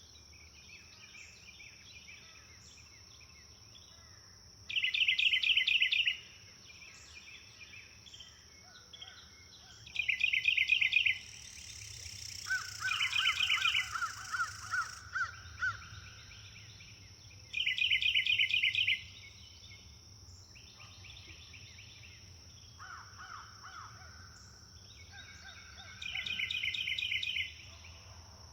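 Songbirds singing loud, quick trilled phrases of about a second and a half each, repeating every few seconds. A lower series of repeated notes comes in about halfway. Under them runs a steady high-pitched insect drone.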